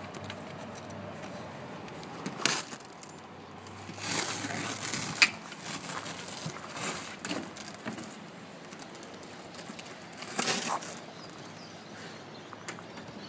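A caravan's door being unclipped and moved: scattered clicks and knocks with rustling, the loudest a sharp click about five seconds in and another noisy burst about ten seconds in.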